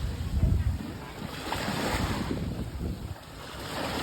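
Sea waves washing ashore in swelling, ebbing rushes of noise, with wind buffeting the microphone as a low rumble in the first second.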